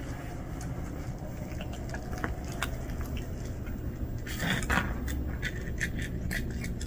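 Two cats eating from a bowl: scattered crunching and small clicks, with a denser burst of crunching about four and a half seconds in, over a steady low rumble.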